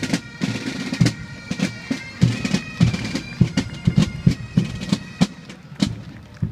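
Pipe band playing a march: bagpipes with a drum line, including a bass drum striking a steady beat of about two a second.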